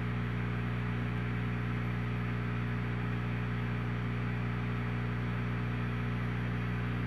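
Steady low electrical hum, several fixed tones together, with a soft even hiss above it, unchanging throughout.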